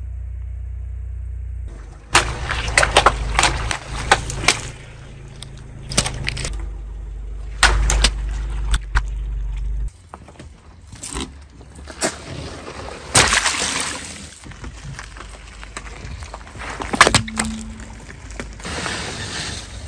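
Car tyre rolling over and crushing soft toys and balloons: a series of sharp cracks, pops and squelches. A low steady rumble of the car sits under the first half and drops away about halfway.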